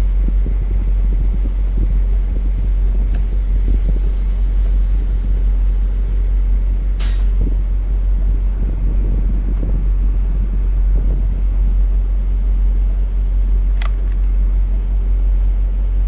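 Semi-truck engine idling with a steady low rumble. About three seconds in, a hiss of released air lasts about three seconds and ends in a sharp click, with another click near the end, as the air brakes are worked while the trailer tandems are being slid.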